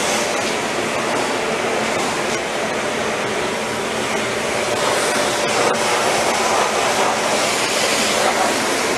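Steady rushing hiss with a faint hum underneath.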